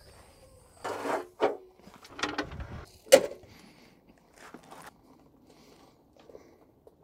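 A handful of clunks and rattles of hard objects being handled, the loudest a single sharp knock about three seconds in.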